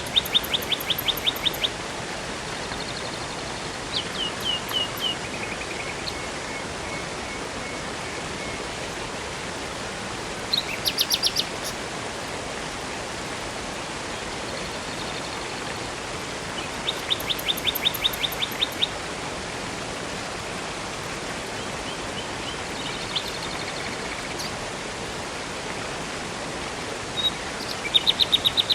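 Steady rush of a river and waterfall, with a songbird singing short, fast trills of repeated high notes about five times, every several seconds.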